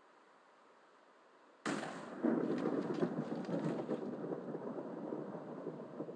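A fireplace's crackling fire sound starting abruptly about a second and a half in, then running on as a steady rushing crackle with many sharp pops.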